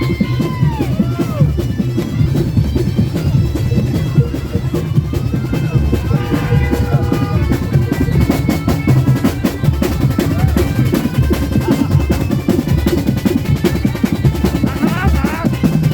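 Parade percussion band drumming: fast, dense bass drum beats with snare rolls. A few short sliding high tones come at the start, in the middle and near the end.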